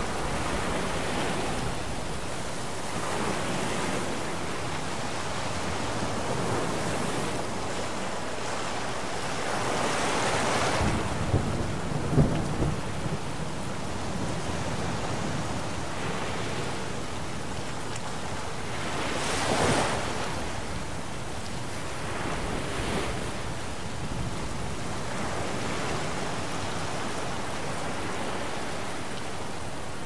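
Thunderstorm at sea: a steady hiss of rain and wind over breaking waves that rises and falls in surges. About ten seconds in, a rumble of thunder swells up with a few sharp cracks, and another surge comes a little before two-thirds of the way through.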